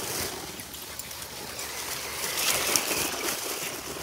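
Dry fallen leaves rustling and crackling as dogs and an RC car run across a leaf-covered lawn, the noise building to a peak about two and a half seconds in.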